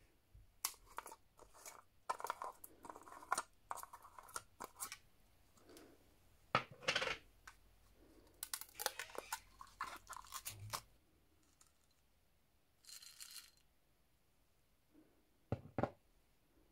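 Plastic supplement jar being opened by hand: the screw cap twisted off, then the seal over the jar's mouth torn and peeled away in crackly, clicking bursts. Near the end come two sharp clicks as the capsules inside are handled.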